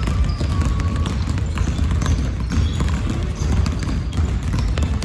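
Basketball being dribbled fast and continuously on a court floor, one rapid bounce after another.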